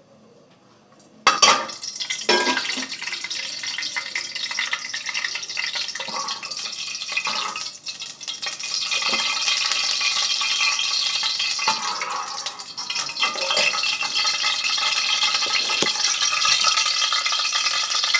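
Ghee sizzling in a steel cooking pot, with a metal ladle knocking and scraping against the pot. A sudden loud clank about a second in starts it.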